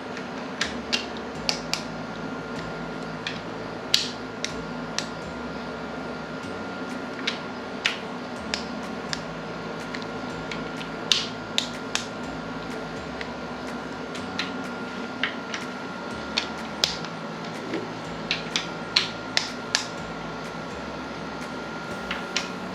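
Scattered sharp metallic clicks and clinks of tools and engine parts being handled during a cylinder-head teardown, coming irregularly every second or so over a steady faint hum.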